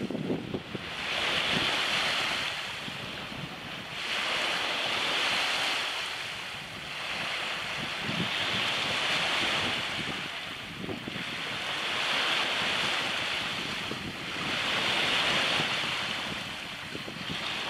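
Small waves washing onto a sandy beach: a hiss that swells and fades about every three seconds, with wind on the microphone.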